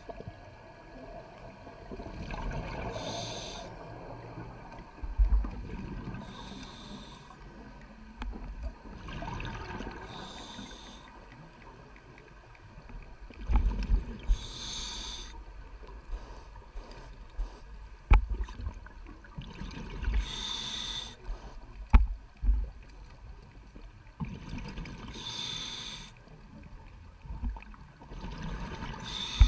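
Scuba diver breathing through a regulator underwater: a hiss on each breath about every four to five seconds, with low bubbling rumbles and a few knocks between breaths.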